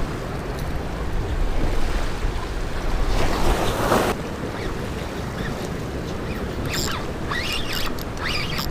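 Ocean waves washing and breaking against jetty rocks, with wind rumbling on the microphone. One wave breaks louder about three seconds in, and a few short high squeaks come near the end.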